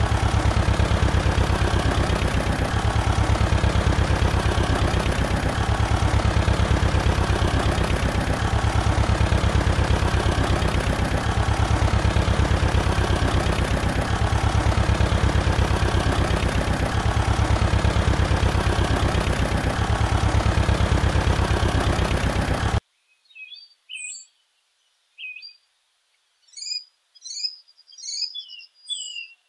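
A loud, steady machine-like drone with a fast low pulse, which cuts off suddenly about three-quarters of the way through. After it, scattered short bird chirps.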